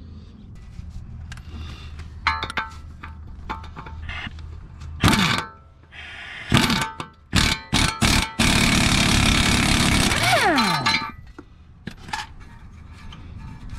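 Metal tools clinking and a few sharp knocks, then a power impact wrench runs loudly for about two and a half seconds undoing a shock mounting bolt and whines down as it stops.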